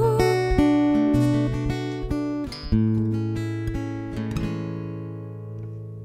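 Acoustic guitar playing the closing bars of a slow song: a few plucked notes, then a final chord struck about halfway through that rings out and fades away.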